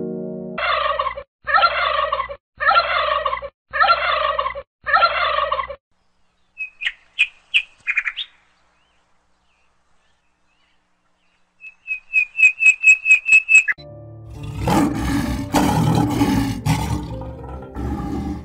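A string of separate animal calls. First five evenly spaced calls, each falling in pitch, then a few short high chirps, then after a pause a quick run of about eight chirps, and finally a longer, louder sound with a deep rumble.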